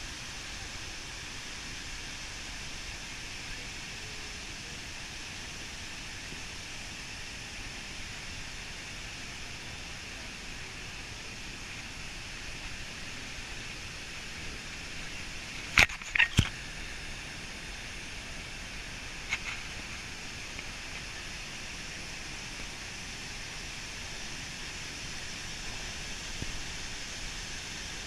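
Steady, even noise without any pitch. Two sharp clicks close together about halfway through and another a few seconds later.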